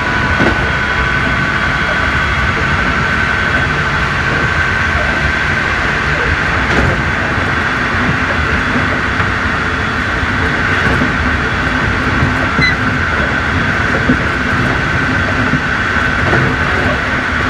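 Keikyu New 1000 series electric train running, heard from inside the car: a steady rumble of wheels on rail, with a high whine from its Toshiba IGBT-VVVF inverter and traction motors held at an even pitch.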